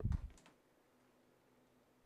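Near silence, with a few faint low knocks and clicks in the first half second.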